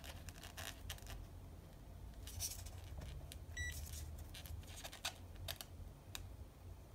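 Light clicks and rustles of small resistors on a paper tape strip being handled and fitted to multimeter test leads. About halfway through there is one short, high electronic beep.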